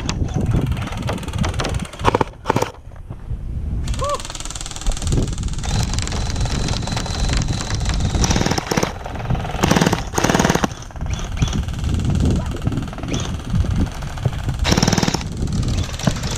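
Gel blasters firing in short bursts, the longest about a second, twice in the second half, over a steady low rumble.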